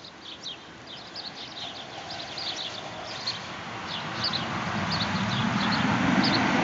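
Small birds chirping, a string of short high chirps several times a second, over a low rushing noise that swells during the second half.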